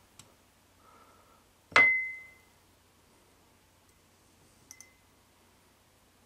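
Metal tweezers knocking a small glass beaker: one sharp clink that rings on in a single high tone for most of a second. A lighter double tick with a brief ring follows a few seconds later.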